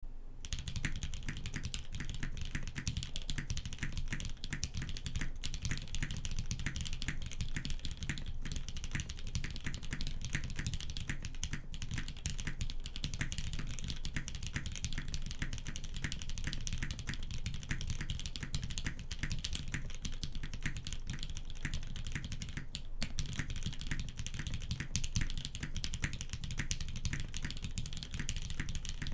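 Continuous fast typing on a custom 65% mechanical keyboard: Hyperglide Black linear switches lubed with Krytox 205g0 in an aluminium plate and Haus case, with GMK Botanical keycaps, giving a rapid stream of keystrokes without a break.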